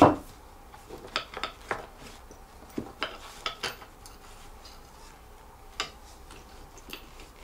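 Sparse small clicks and taps of assembly hardware, about ten spread unevenly, with a sharper knock at the very start, as a part is wiggled into line with its bolt holes on a club chair's frame.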